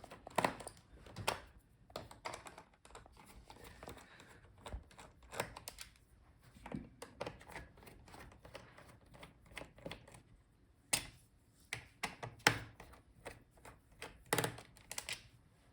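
Irregular small clicks and taps of a screwdriver working the screws out of a laptop's plastic bottom case, with a few louder clicks near the end.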